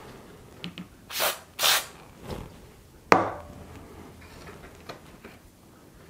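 Two short hisses of DeoxIT D5 aerosol contact cleaner sprayed onto the radio's scroll wheel parts, then a single sharp knock about three seconds in. Light clicks of handling fill the rest.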